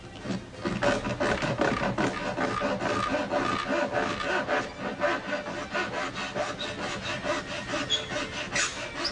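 Hacksaw cutting through a pleated shade's plastic head rail in steady, repeated back-and-forth strokes.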